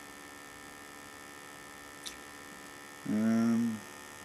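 Steady electrical mains hum in the recording, with a faint click about two seconds in. About three seconds in, a man makes a short wordless hesitation sound, under a second long.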